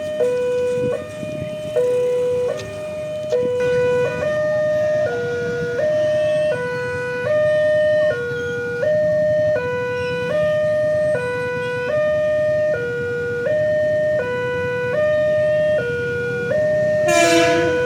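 Electronic two-tone warning siren of a railway level crossing, alternating steadily between a higher and a lower tone, each held for just under a second. A short, loud burst of noise cuts across it near the end.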